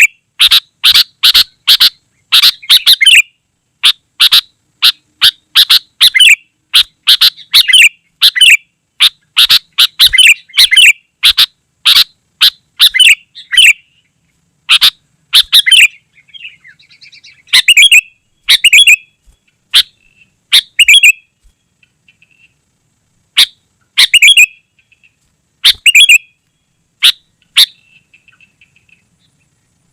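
Sooty-headed bulbul (kutilang) calling busily, a fast run of short, loud chirping phrases. They come thick and close together for the first half, then in sparser bursts with pauses, falling quiet near the end.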